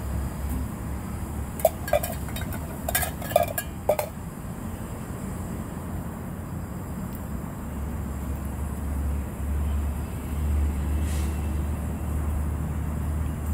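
A quick series of light clinks and taps, about two to four seconds in, from utensils and small containers being handled on a camp table, over a steady low rumble that grows a little louder in the second half.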